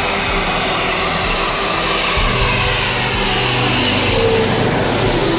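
Twin-engine jet airliner on low final approach passing overhead. The engine noise is loud and steady, with a whine that falls in pitch as the plane goes past, about four seconds in.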